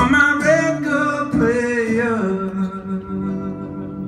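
Male voice singing a drawn-out closing phrase with acoustic guitar, the pitch sliding between notes, then settling about two seconds in on a long held final note.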